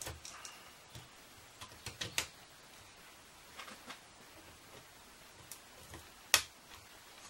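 Scattered small clicks and taps of pliers and wiring being handled at the back of a metal CNC control box, with one sharp, louder click about six seconds in.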